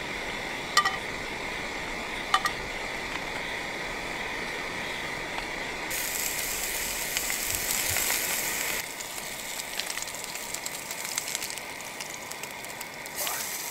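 Camping stove hissing steadily under a hot non-stick frying pan, with two sharp clicks in the first few seconds. About six seconds in, a Barnsley lamb chop goes into the pan and sizzles loudly as it sears. After a couple of seconds the sizzle settles to a quieter, crackling fry.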